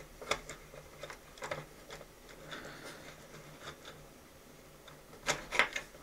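Small plastic clicks and ticks of a 3D-printed knob being turned against the end of a threaded steel rod, with two louder clicks close together near the end.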